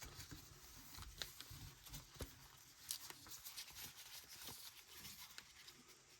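Near silence with faint, scattered clicks and soft rustles of trading cards being handled.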